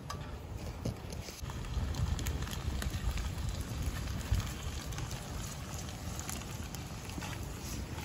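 Open wood fire crackling and popping under a pan of minced meat, with rice poured from a plastic bowl into the pan a few seconds in.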